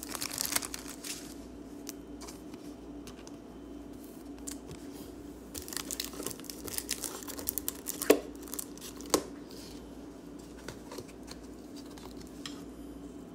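Trading cards being handled and a plastic pack wrapper crinkling, in irregular rustles with a few short sharp clicks, the loudest about 8 seconds in.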